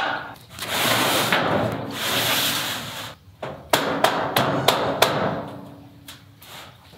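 Corrugated tin roofing sheet scraping as it is slid across wooden rafters. This is followed by several sharp clanks and knocks as the sheets are shifted into position.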